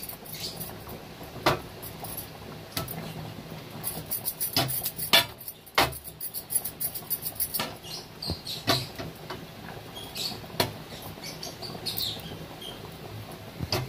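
Hot mustard oil crackling and spitting as it is swirled around a hot frying pan over a high gas flame, with irregular sharp pops over a faint steady hiss.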